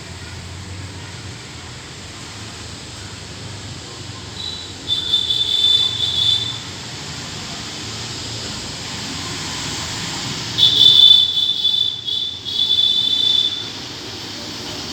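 Plum-headed parakeets calling: two spells of shrill, high, drawn-out whistling screeches, about five seconds in and again about ten and a half seconds in, each lasting a second or more. A low steady rumble runs underneath.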